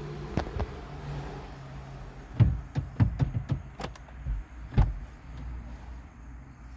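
A run of knocks and clunks in quick succession over about two and a half seconds, from someone climbing into a front seat.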